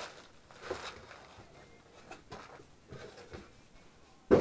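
Soft rustling and handling of a clear plastic bag full of wooden model-kit parts as it is laid on a workbench cutting mat, then one sharp knock near the end.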